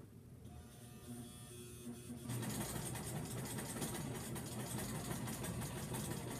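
Electric sewing machine stitching fabric: the motor and needle start about two seconds in and run at a steady, fast pace, then stop near the end.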